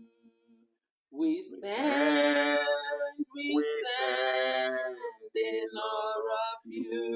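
A man and a woman singing a worship song together without accompaniment. A held note dies away at the start, and after a short pause the singing picks up again about a second in, with sliding, drawn-out notes.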